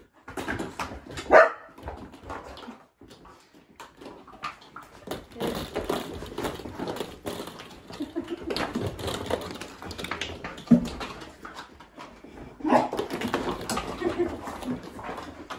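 Dogs vocalising, a bark and whines among them, as they play, with plastic balls knocking and clattering about the carpet throughout.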